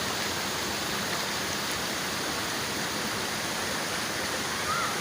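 Small waterfall splashing into a pool: a steady, even rush of falling water.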